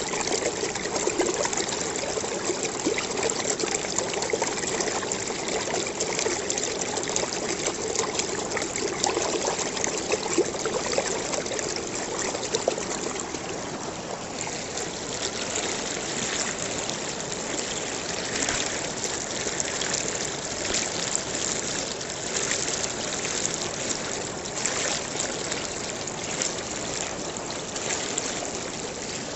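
Running water of a small stream, trickling and splashing steadily.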